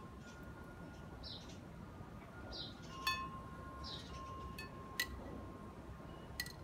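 Metal chimes struck three times, each strike ringing on, over faint held chime tones, with a bird giving a short high chirp about every second and a bit.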